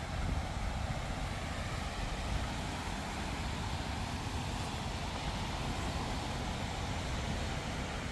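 Wind buffeting the microphone: a steady rushing noise with a deep rumble underneath.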